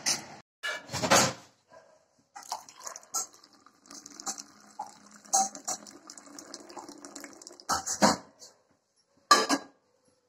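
Hot water poured into a ceramic mug of instant coffee, and a metal spoon clinking against the mug as it stirs, in short separate spells with brief gaps.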